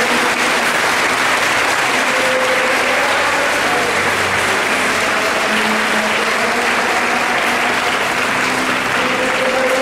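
A congregation applauding steadily, a dense clapping, with faint singing beneath it.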